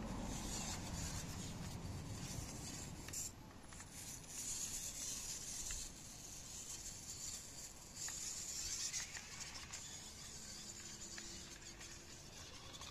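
Micro electric gear motor of a small 1:24 scale RC crawler whirring in spurts of a second or more as the car climbs over loose dirt, its soft printed tyres scraping the soil. The sound grows fainter near the end as the car drives off.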